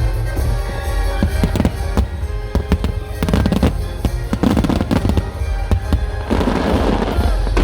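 Aerial fireworks bursting in rapid succession in a grand finale barrage: many sharp bangs over a continuous deep rumble. A dense spell of noise comes near the end.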